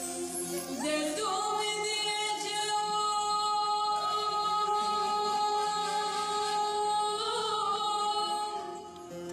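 A woman singing a Turkish song, holding one long note from about a second in until it fades near the end.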